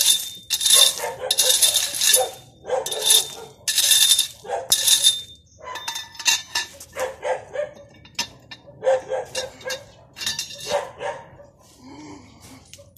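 A dog barking repeatedly, loud barks coming about once a second at first, then weaker and more spaced out.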